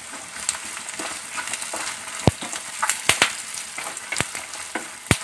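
Dried red chillies, garlic, ginger, green chillies and curry leaves sizzling in hot oil in a non-stick pan, being stirred and roasted for a pickle masala. A spatula scrapes through them and knocks sharply on the pan several times.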